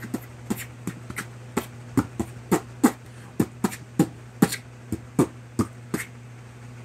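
A series of sharp, irregular taps, about seventeen over six seconds, roughly three a second, over a steady low hum.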